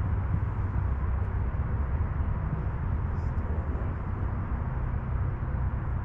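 Steady low rumble of outdoor background noise, heaviest in the deepest pitches and unchanging throughout.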